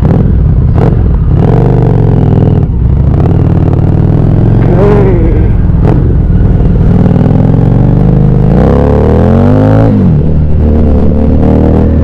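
Harley-Davidson Street 750's V-twin engine with an aftermarket exhaust, running as the bike is ridden. Its pitch climbs under throttle from about two thirds of the way in, then falls away about a second and a half later.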